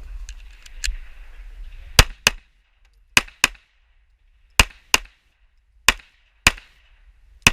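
Smith & Wesson Shield 9mm pistol fired rapidly: nine shots, mostly in quick pairs, the pairs about a second apart, with a last single shot near the end.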